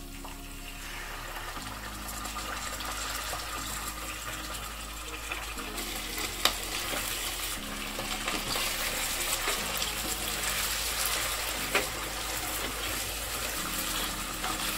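Raw chicken pieces sizzling in hot oil with fried onions in a kadhai, the sizzle building as they go in. They are stirred with a slotted spatula, with a couple of sharp knocks of the spatula against the pan.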